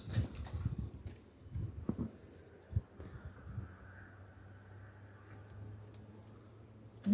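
Crickets trilling steadily and faintly, with a low hum and a few light knocks.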